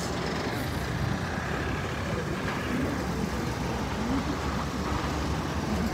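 Steady traffic noise: car engines running and tyres on the road, an even low rumble with no distinct events.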